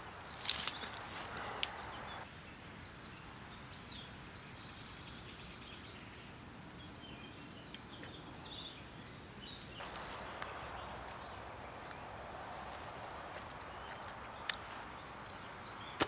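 Small birds chirping in short bursts over steady outdoor background noise, with a couple of sharp clicks near the end.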